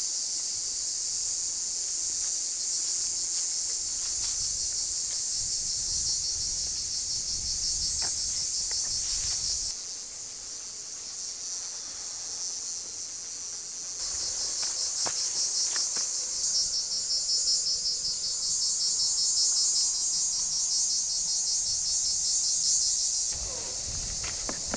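A loud, continuous chorus of insects chirring in a dense, rapidly pulsing high-pitched band. It weakens for a few seconds about ten seconds in, then returns.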